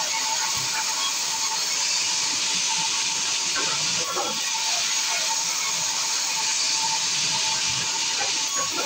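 Large sawmill band saw ripping a thick timber beam lengthwise: a steady hiss of the blade cutting through the wood, with a faint steady tone from the running machine underneath.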